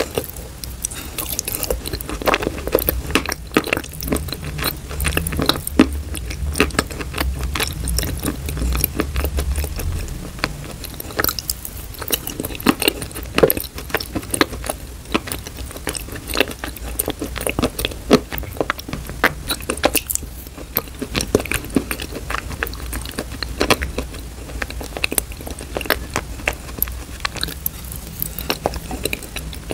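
Close-miked mouth sounds of eating thick wet clay paste off a spoon: dense sticky clicks, crackles and smacking, over a low steady hum.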